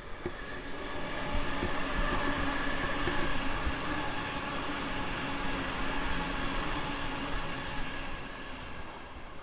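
Sydney Trains train passing through the station. Its running noise and a steady whine swell over the first couple of seconds, hold, then fade slowly near the end.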